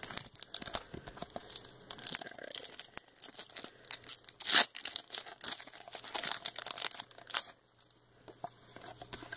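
Foil wrapper of a 1995 Fleer X-Men trading card pack being torn open and crinkled by hand: a quick run of sharp tearing and crackling, loudest about halfway, stopping about seven and a half seconds in.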